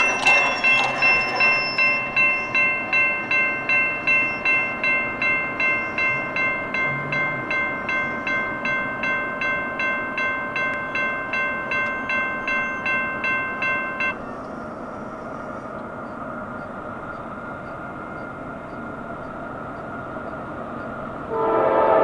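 Railroad crossing bell ringing at about two strikes a second, then stopping abruptly about 14 seconds in. After that comes the steady low rumble of the approaching CSX freight train, and near the end its locomotive horn sounds.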